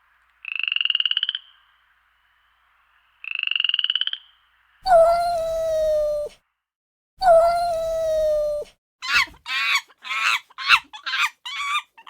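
A sequence of animal calls. First come two short, rapidly pulsed high-pitched calls. Then two longer calls, each falling slightly in pitch, and near the end a quick run of about eight short wavering calls.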